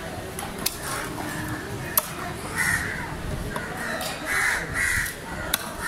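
Crows cawing three times, each a short harsh call. Between the caws come a few sharp clicks of a knife blade against a wooden chopping block.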